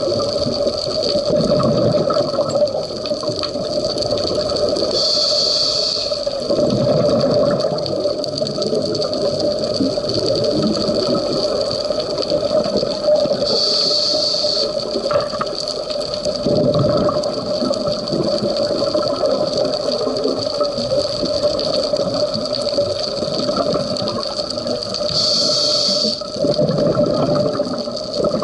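Scuba diver breathing through a regulator underwater. Each breath is a short hiss on the inhale, then a couple of seconds of bubbling on the exhale. There are about three breath cycles, roughly ten seconds apart, over a steady hum.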